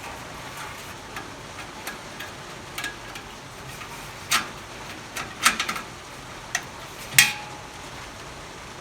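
Scattered small metallic clicks and taps as screws are fitted and tightened into a propane patio heater's shield. The loudest click comes about seven seconds in, with a short ring after it.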